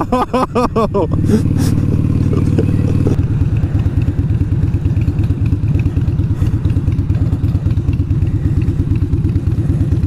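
Harley-Davidson V-twin motorcycle engine running under the rider, with a shouting voice over it in the first second. About three seconds in, the engine note drops and settles into a slow, evenly pulsing beat as the bike rolls along at low speed.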